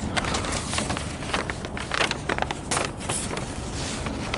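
Footsteps on a brick walkway with handling noise from a handheld camera: irregular short scuffs and clicks over a steady low background rumble.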